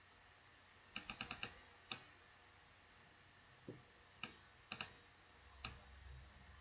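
Scattered sharp clicks of computer input (mouse buttons and keys) while text is selected and copied: a quick run of about five clicks about a second in, then single and paired clicks spread through the rest.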